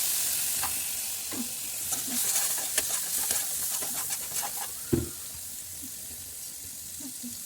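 Onion and peas with spices frying in hot oil in a pan, sizzling loudest at first and slowly dying down, with a spoon clicking and scraping as it is stirred and one louder knock about five seconds in.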